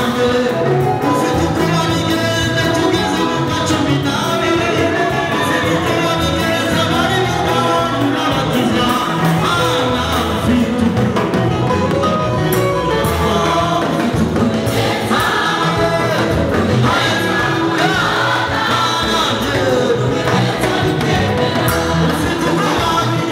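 A church choir singing a gospel song in parts with instrumental backing, continuous and loud.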